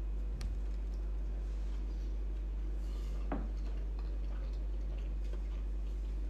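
A steady low hum under the quiet sounds of a meal: a few faint clicks of forks on plates and soft chewing, with a brief slightly louder noise about three seconds in.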